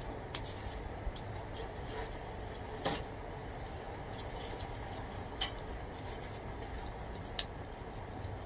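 Small wood fire burning in a folding hobo stove: a steady low rush with scattered sharp crackles and pops at irregular intervals.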